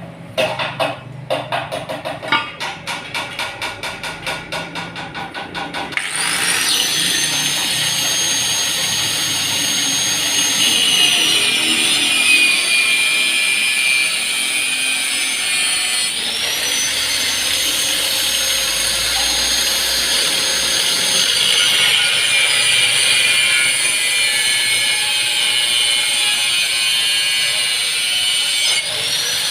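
Rhythmic sawing strokes, about two or three a second, then a handheld power tool cutting or grinding exhaust pipe metal, running steadily at a high pitch. The tool comes up to speed about six seconds in, and slows and picks up again about ten seconds later.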